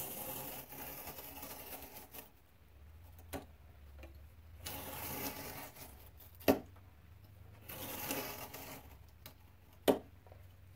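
X-Acto hobby knife slicing through doubled, glued corrugated cardboard along a steel ruler: repeated drawn strokes of scraping noise, each a second or two long, with three sharp clicks between them.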